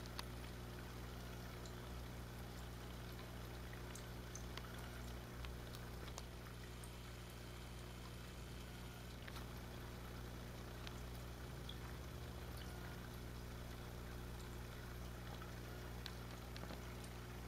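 Faint steady hum of running aquarium equipment, with water bubbling and scattered tiny ticks.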